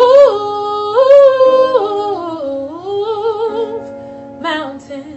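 A woman singing a slow ballad, stretching one word over long held notes that step down and back up, with vibrato in the middle, over a soft sustained instrumental accompaniment.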